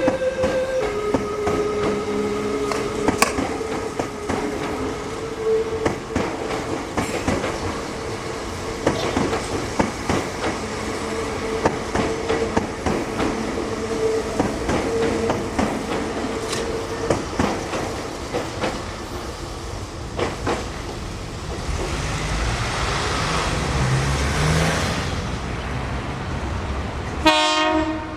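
Meitetsu electric train running with its wheels clicking over rail joints and a steady tone beneath. The last notes of the train's music-horn melody end just after the start, a rumbling swell passes about three-quarters of the way through, and the music-horn melody starts up again near the end.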